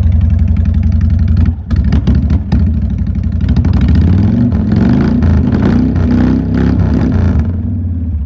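Honda VTX 1300 V-twin engine running loud through Cobra aftermarket exhaust pipes: a steady idle, a few quick throttle blips about a second and a half in, then several revs in the middle before it settles back.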